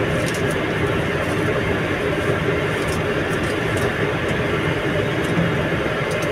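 Steady in-flight cabin noise of an Airbus A330: an even, unchanging rush of engine and airflow noise, with a few faint ticks over it.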